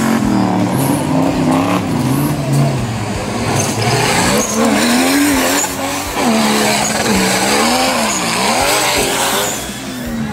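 Off-road racing buggy's engine revving hard, its pitch rising and falling again and again as the throttle is worked on and off.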